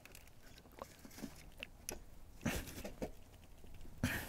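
Faint, irregular clicks and scrapes of a socket on an extension being fitted to and worked on the alternator's charging-wire terminal nut, which is stuck tight. Two brief louder knocks come about two and a half and four seconds in.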